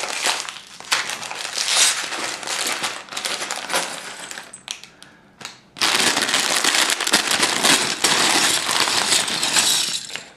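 Plastic bag of Lego bricks crinkling as it is torn open and handled, then from about six seconds in a dense rattle of plastic bricks as they are shaken and poured out of the bag onto carpet.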